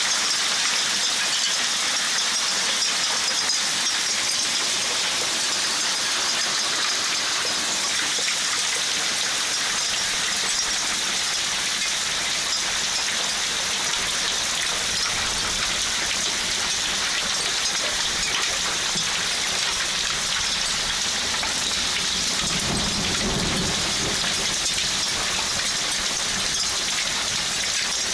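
Heavy downpour of rain mixed with hail, a steady dense hiss of drops striking the ground and plants. A low rumble swells briefly about two-thirds of the way through.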